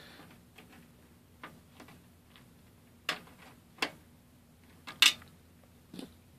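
Screwdriver tightening the screw on a PCI card's metal bracket in a computer case: a few separate metal clicks and ticks, the loudest about five seconds in.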